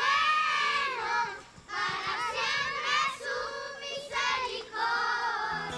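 A group of children singing together in high voices, in short phrases with brief breaks between them.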